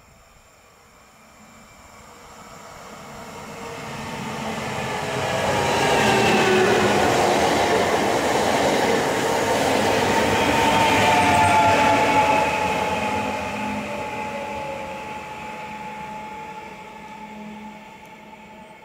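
Koleje Małopolskie EN76 (PESA Elf) electric multiple unit passing close by: wheel and rail noise builds up, is loudest for several seconds as the train goes past, then fades. A motor whine drops in pitch as the train passes.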